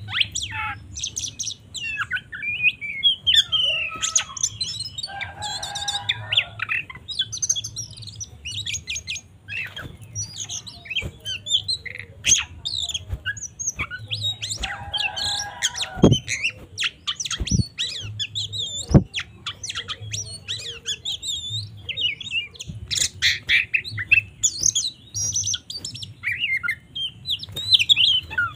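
Oriental magpie-robin (kacer) singing a rapid, varied song of whistles, chirps and trills in an agitated, fighting mood, with harsher buzzy notes about five seconds in and again around fifteen seconds. A few sharp clicks sound between about sixteen and nineteen seconds.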